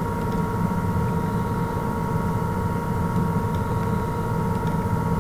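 Steady electrical or machine hum with several fixed tones over a low rumble, and a few faint mouse clicks.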